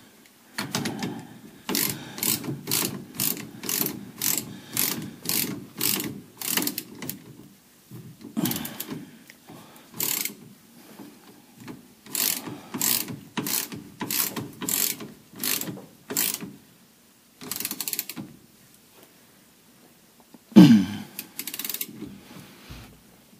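Hand ratchet wrench clicking in quick back-and-forth strokes, about two to three a second, in several runs with short pauses, as a shock absorber mounting bolt is tightened.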